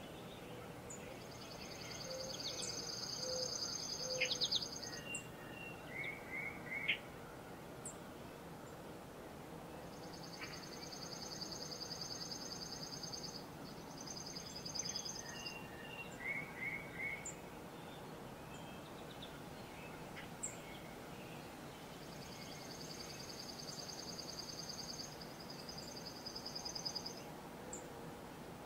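A songbird sings a high, rapid trill three times, about ten seconds apart. Each trill lasts four to five seconds, with a brief break near its end. Other birds give short chirps and quick three-note calls in between, over a faint steady background hiss of the woods.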